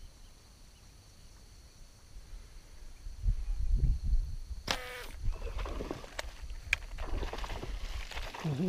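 A fishing slingshot drawn and fired: rumbling handling noise, then a sharp snap with a brief ringing tone near the middle as the rubber bands release the arrow and its line. A few light clicks follow, and a man's short hum begins right at the end.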